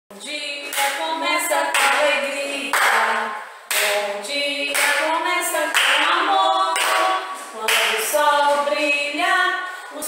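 Two women singing a children's song without accompaniment, clapping their hands along in time about once a second.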